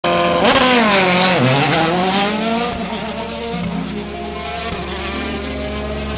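Rally car engine revving: the pitch climbs, drops about a second and a half in, climbs again, then settles into a steadier run.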